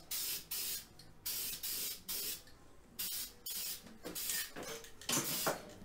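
Aerosol spray can of gray etching primer hissing in a series of short bursts with brief pauses between them, the light passes of a fog coat on motorcycle engine cases.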